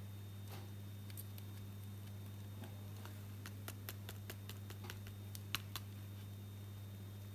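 Faint, scattered small clicks and scrapes of a metal pin picking dirt out of an iPhone 6 Plus Lightning charging port, coming in a quick run from about halfway through with one sharper click, over a steady low electrical hum.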